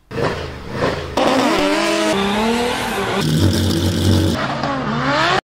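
Several short clips of high-revving sports-car engines cut back to back, the revs climbing and dropping, among them a Ferrari F50's V12. The sound stops abruptly near the end.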